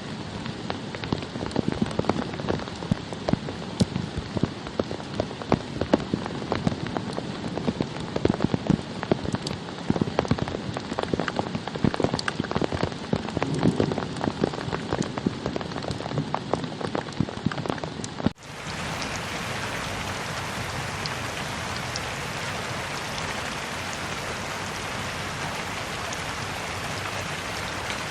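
Rain falling on a surface, with many distinct drops hitting close by. About two-thirds of the way through it cuts abruptly to a smoother, steady hiss of rain.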